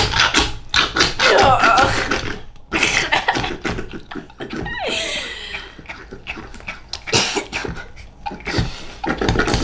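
Goo Goo Galaxy slime toy being pumped with its plunger: wet slime squelching and sputtering in a run of short, irregular bursts.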